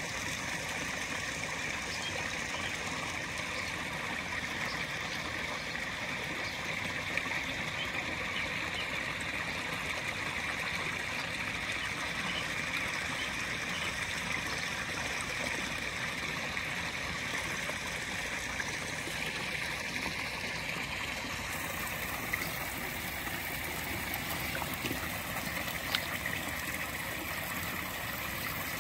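Running water in a koi pond, a steady even rush, with a few faint ticks now and then.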